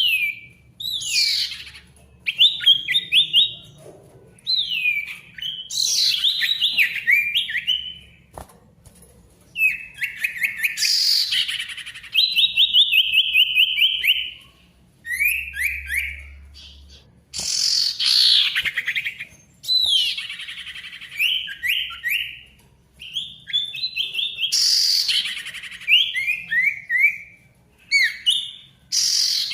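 Sirtu (common iora) singing loudly in repeated phrases every two to three seconds. Each phrase is a sharp falling whistle followed by a quick run of short stepped notes, as in a bird in full song.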